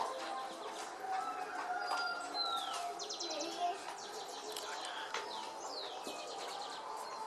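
Several birds chirping and calling at once, with quick trills and falling whistles.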